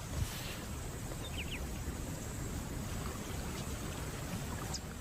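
Shallow water sloshing and lapping as lions move through a flooded wetland, with a few short, faint bird chirps.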